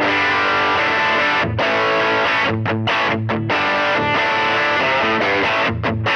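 Electric guitar played through a Fractal Audio FM9 modelling the USA Subway Blues amp (based on the Boogie Subway Blues combo) into a 1x10 Metro Blues DynaCab miked with a dynamic mic. A run of notes and chords with a meaty tone, with a few brief gaps between phrases.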